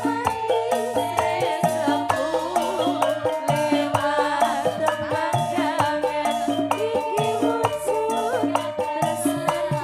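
Campursari band playing live: a steady, fast beat of percussion strokes over held bass notes, with a melody that bends in pitch above.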